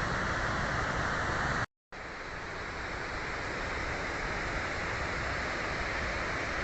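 Waterfall rushing down a rocky cliff: a steady roar of water. About two seconds in it cuts out for a moment, then comes back a little quieter and builds up again.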